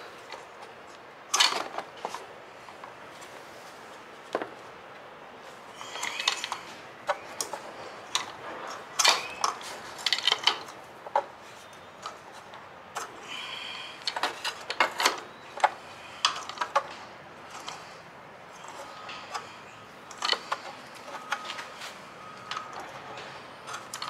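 Scattered clicks, taps and short scrapes of hands handling plastic parts at a riding mower engine's oil fill during an oil change, irregular and sharp, the loudest about a second in and around nine seconds in.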